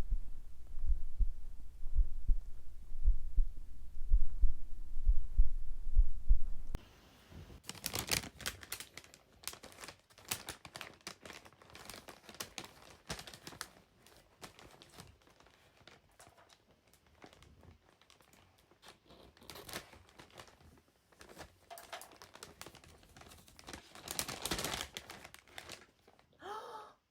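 A pulse thumping steadily, about one and a half beats a second, through a microphone pressed on the belly. It stops suddenly about seven seconds in, and quiet crinkling, rustling and clicking handling noise follows, with a short squeaky gurgle near the end.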